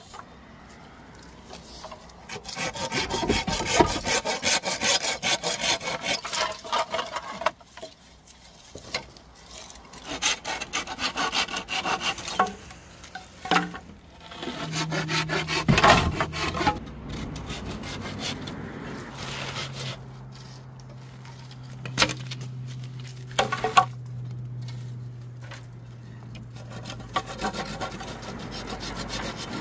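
Hand pruning saw cutting through dry bamboo poles in rapid back-and-forth strokes, in spells of a few seconds with short pauses between.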